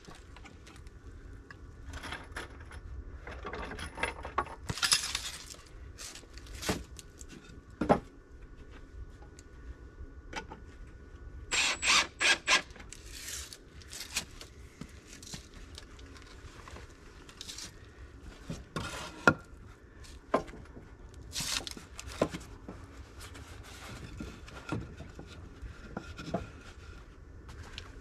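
Cordless drill driving a screw into a wooden board in a short, pulsing burst about halfway through, among scattered sharp clicks and knocks of screws and lumber being handled.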